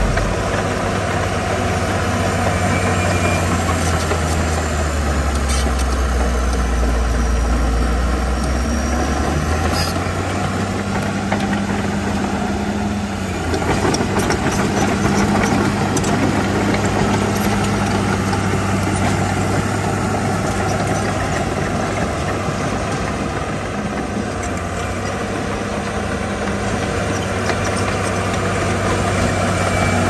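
Heavy diesel engine of earthmoving machinery running steadily, its low note stepping up in pitch about a third of the way in.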